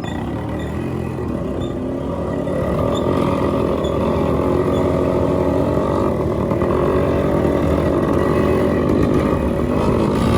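Modified Yamaha RX100's two-stroke single-cylinder engine running steadily, growing louder about two to three seconds in.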